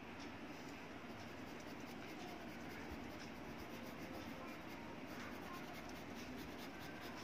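Pencil scratching faintly on drawing paper in quick repeated strokes, shading a portrait.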